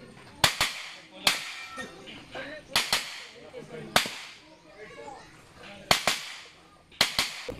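Gunshots fired in quick succession, about ten in all, mostly in close pairs (double taps) with pauses of a second or two between groups, each shot followed by a short echo.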